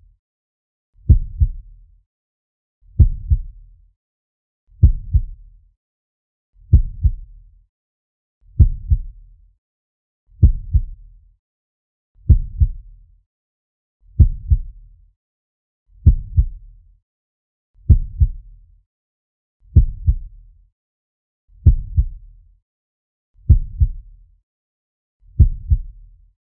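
Slow heartbeat sound effect: a steady low double thump (lub-dub), about one beat every two seconds, with silence between the beats.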